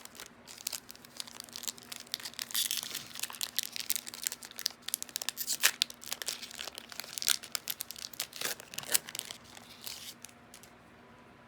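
Foil booster-pack wrapper crinkling and crackling as it is handled and torn, in a rapid irregular run of sharp crackles that stops about ten and a half seconds in.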